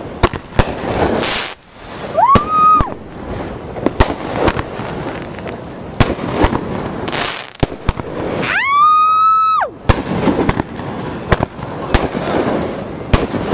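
Aerial fireworks going off: a string of sharp bangs from shell bursts with crackling between them. Two whistles rise and then hold a steady pitch, a short one about two seconds in and a longer one around nine seconds in.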